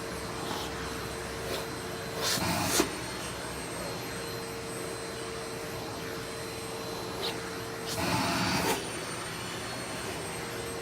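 Vacuum cleaner running steadily with a held hum while its nozzle sucks loose shed hair from a cat's fur. Twice, about two seconds in and again about eight seconds in, a louder rushing noise lasts under a second.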